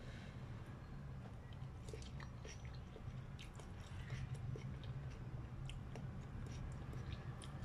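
Close-up eating sounds of a person slurping and chewing noodles in broth: irregular wet smacks and small clicks, busiest about halfway through.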